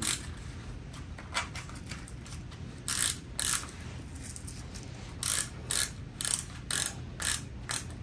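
Ratcheting lace dial on a wrist fracture brace being turned to tighten the brace, giving a series of sharp clicks, single and in close pairs, with a couple of longer pauses.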